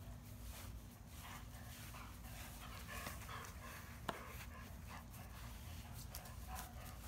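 Old English Sheepdog panting softly as she walks, with one sharp click about four seconds in.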